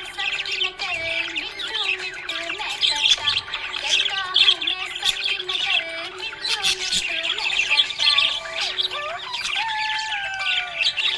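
Budgerigar chirping and warbling in a rapid, continuous stream of high chirps, with background music underneath.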